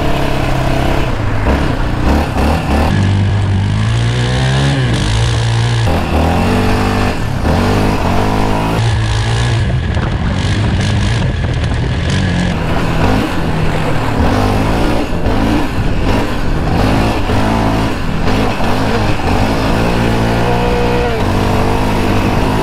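Yamaha Raptor 700 ATV's single-cylinder engine being ridden hard, its pitch repeatedly rising as it accelerates and dropping off as it shifts or lets off.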